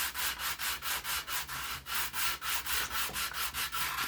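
Styrene plastic being sanded by hand in quick, even back-and-forth strokes, about four a second, angled to put a bevel on the edge.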